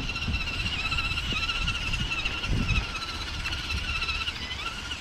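Electric motor of a radio-controlled monster truck whining steadily, its pitch wavering slightly as the throttle varies, over irregular low knocks.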